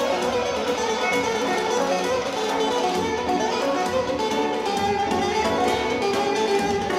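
Instrumental passage of Turkish regional folk music played live on string instruments, a bowed fiddle over plucked strings, with no singing.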